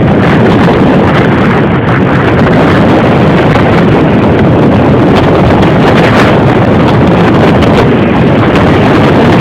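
Hurricane-force wind blasting across a phone's microphone, loud and unbroken, with a deep rumble from the buffeting.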